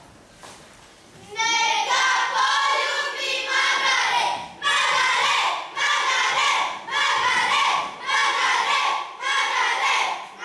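A group of children singing loudly together, a folk song in held phrases of about a second with short breaks, starting about a second and a half in.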